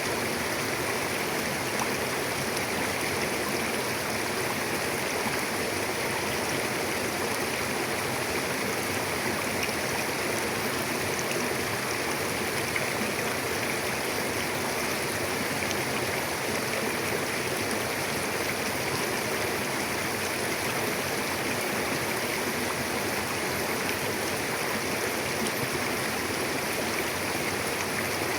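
Mountain river rushing steadily over rocks, an even, unbroken water noise.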